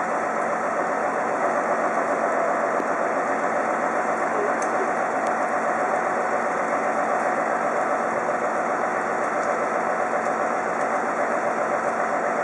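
Diesel engine of a Mercedes loader-crane truck running steadily at idle while the crane works, a dense, even engine sound with no changes in pitch.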